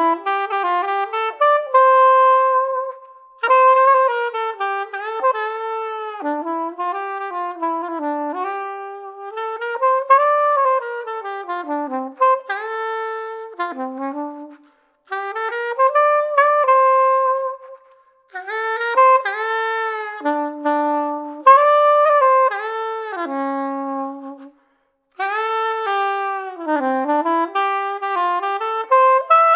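LC SU-701CL straight soprano saxophone in yellow brass, played unaccompanied through a Selmer Paris Super Session H mouthpiece. It plays melodic phrases with notes that bend and slide into one another, broken by a few short pauses.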